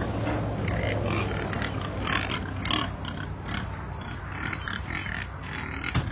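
Several hogs grunting and oinking in a run of short calls.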